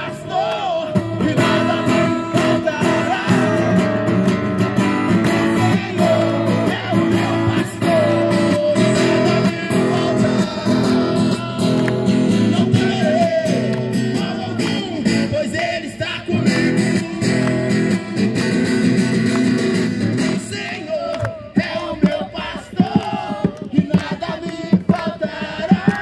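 A man singing a worship song to a strummed acoustic guitar. About twenty seconds in, the steady strumming drops away.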